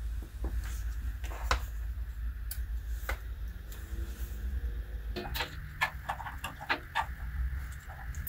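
Scattered light clicks and taps as wires and a plastic AA battery box are handled and connected, over a low steady hum.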